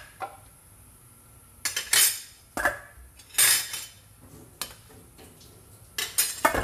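Metal ladle knocking and scraping against a stainless steel soup pot: several sharp clinks and clanks, spaced out over a few seconds.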